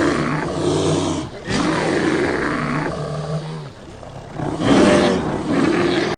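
Big cat roaring and growling in a string of long, rough, low calls. They ease off about four seconds in, come back louder near the end, then cut off abruptly.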